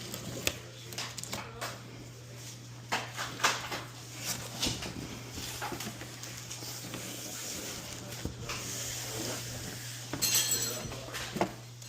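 Cardboard box and packing being handled while a large TV is unpacked: scattered knocks and clicks, with a short burst of rustling about ten seconds in.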